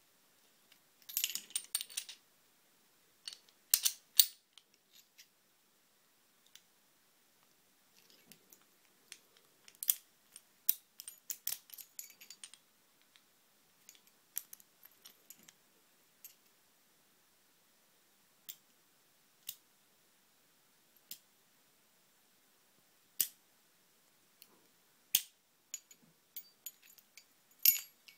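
Ingersoll 10-lever cutaway padlock being worked with its key, giving sharp metallic clicks and ticks as the key and levers move. The clicks come in clusters during the first half, then singly every second or two.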